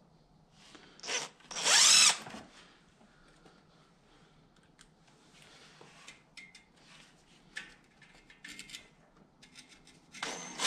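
Cordless impact driver screwing a carbide-tipped stud (ice screw) into the rubber tread lug of an ATV tire. It runs in short bursts, two close together about a second in and another starting near the end, its pitch rising and falling with each run. Small clicks and handling noises fall in between.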